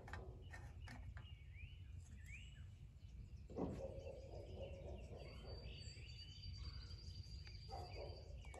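Faint birdsong: repeated short rising chirps, with a thin high whistle held for about three seconds in the second half. A soft rustle close by about three and a half seconds in.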